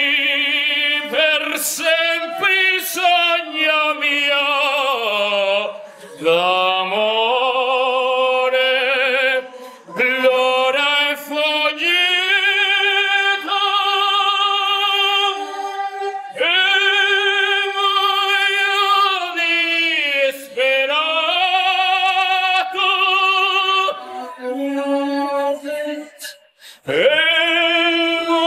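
Soundtrack music: a solo singing voice in a slow, operatic style, holding long, wavering notes in phrases, with short breaks between them.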